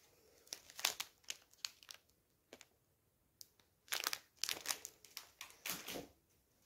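Paper wrapper of a bar of soap crinkling and rustling as it is handled, in two spells of sharp crackles.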